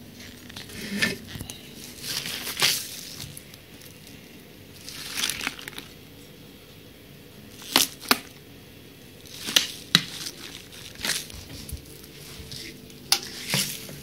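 Thin plastic water bottle being squeezed and handled, crinkling in bursts, with several sharp cracks and clicks of the plastic in the second half.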